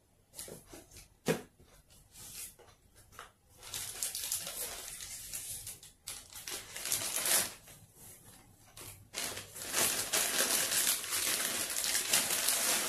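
Clear plastic bag crinkling as a riflescope is lifted out of its box and handled in its wrapping, in two long stretches of rustling after a few light knocks and taps.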